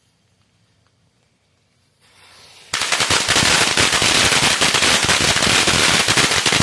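Fire Crackling Max 2 firecracker string (Power Rangers) going off: after about two seconds of quiet and a short hiss, a loud, dense, rapid volley of cracks starts and runs on without a break.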